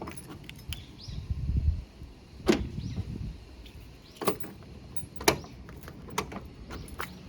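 A car door's handle and latch clicking sharply five times with a low rumble between, on a 2001 Mitsubishi Pajero Mini whose rear door will not open: the latch is not releasing.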